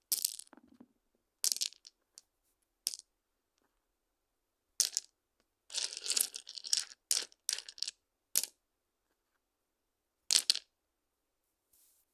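Stones clacking against each other in single sharp knocks a second or two apart, with a longer clatter of quick knocks in the middle.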